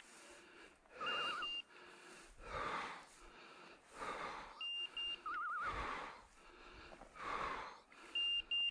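A hunting dog's beeper collar sounding about every three and a half seconds, a short warbling trill with a pair of high beeps, three times. Under it is close, rhythmic heavy breathing, one loud breath about every second and a half.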